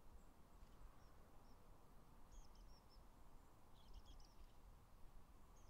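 Near silence with a faint low rumble, over which small birds give a few brief, high chirps, in short clusters about two and four seconds in.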